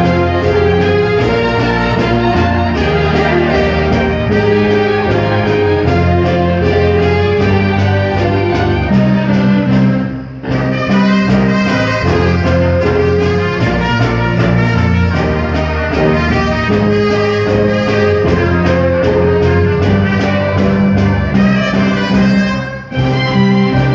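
A band led by brass instruments plays a tune over a steady beat. The music drops out briefly about ten seconds in and again near the end.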